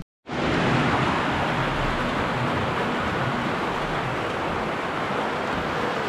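Heavy rain falling, a dense steady hiss that cuts in abruptly a moment in.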